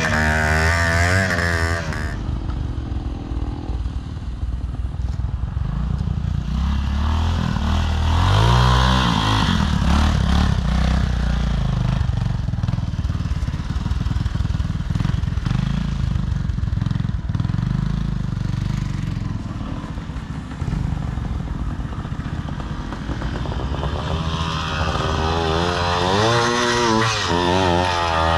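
Twin-shock trials motorcycle engine running at low speed, its throttle blipped in short wavering revs, with the strongest bouts near the start, about eight seconds in, and again in the last few seconds.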